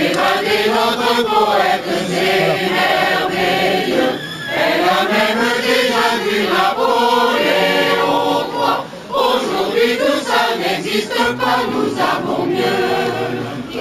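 A choir singing in long phrases, with brief pauses between them.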